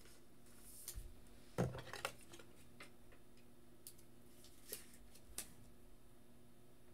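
A few faint, scattered clicks and taps of small hard objects being handled, with one louder knock about a second and a half in.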